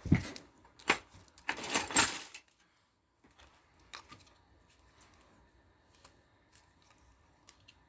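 Trimming by hand with scissors: a knock and a snip in the first second, then a longer rasping cut about two seconds in, followed by a few faint clicks.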